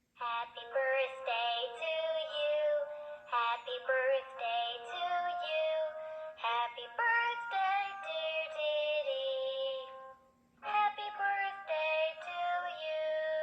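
A short children's song sung by a woman, played from a Ditty Bird push-button sound book. It pauses briefly about three quarters of the way through, then the singing picks up again.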